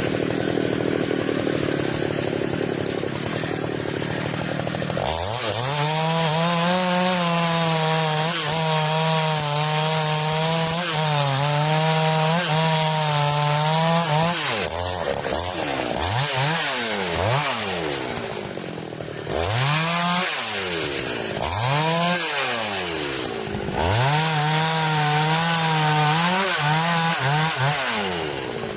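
Chainsaw cutting wood, its engine held at a high, steady pitch for long stretches. In the middle the revs drop and climb again several times, and near the end they fall away.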